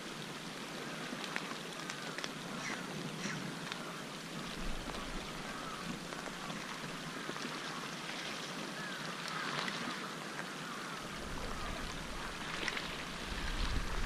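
Steady hiss of sea water and light wind at a harbour quay, with a few faint ticks, and a low rumble of wind on the microphone coming in about eleven seconds in.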